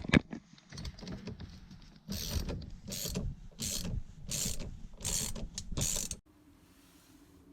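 Hand ratchet backing out screws from the steering column, with a few sharp clicks of handling, then a string of about six ratcheting strokes a little under a second apart that stop about six seconds in.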